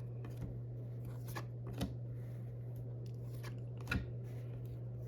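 Baseball trading cards being flipped through by hand: a handful of soft clicks and slides of card against card, over a steady low hum.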